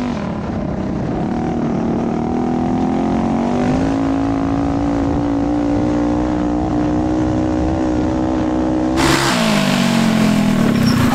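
Tuned Coleman CT200U-EX mini bike's single-cylinder Tillotson 212 engine at full throttle, its pitch climbing and then holding high. About nine seconds in, a loud rushing hiss comes in and the engine note falls as the throttle comes off, then levels out.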